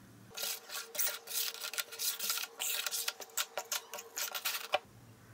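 A rapid, irregular run of clicks and light rubbing of hard objects over a faint steady hum, lasting about four seconds and cutting off abruptly.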